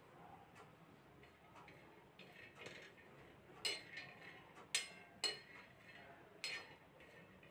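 Faint, short scrapes and clinks of a steel spoon against a flat griddle (tawa), with the dry peanuts on it rattling as they are stirred and turned for dry-roasting. There are about five strokes, starting a little before halfway.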